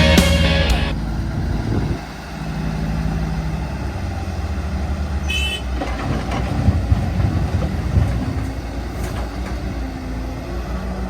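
Intro music cuts off about a second in, leaving the steady diesel rumble of a Cat 315D L excavator working at a loading job. A short high beep sounds about five seconds in.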